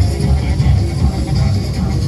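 Loud dance music played over a party sound system, with heavy bass and a steady beat.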